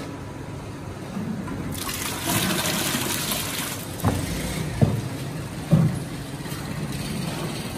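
Soaked chickpeas and water poured from a plastic drum into a large steel pot: a rushing gush of water for about two seconds, followed by three thumps as the pour goes on.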